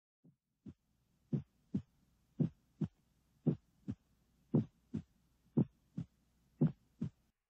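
A slow heartbeat: seven double lub-dub thumps about a second apart, the first one faint and the rest steady.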